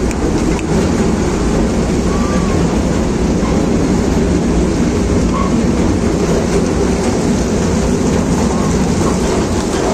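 Small amusement-park ride train running steadily along its track, a continuous rumble and rattle.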